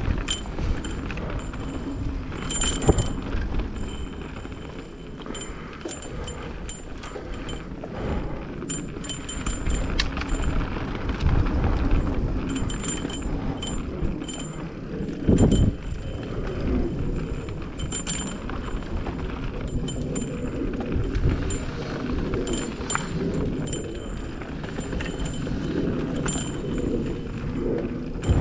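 Mountain bike riding downhill on a wet trail: tyres rolling over dirt and roots with a steady low rumble, and the chain and bike parts clicking and rattling over bumps.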